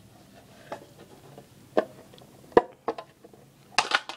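Processor's tin-can-like retail packaging being handled and its lid opened: a few scattered clicks and knocks, with a sharper knock about two and a half seconds in and a quick cluster near the end.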